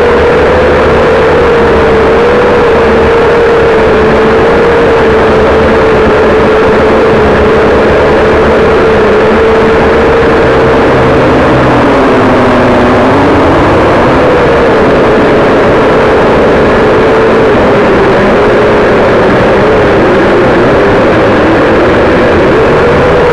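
A drone's motors and propellers buzzing loudly, close to the onboard camera's microphone. It is a steady whine whose pitch wavers and drops lower for a couple of seconds about halfway through.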